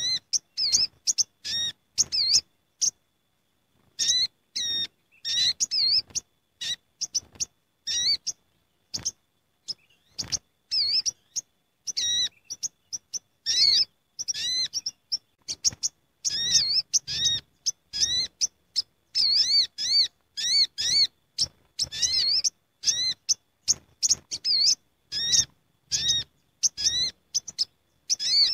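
Olive-backed sunbirds (sogok ontong) calling noisily as a gathered group: rapid runs of sharp, high chirps with brief gaps, the longest about three seconds in. This is the kind of busy flock chatter used as a lure call for trapping sunbirds.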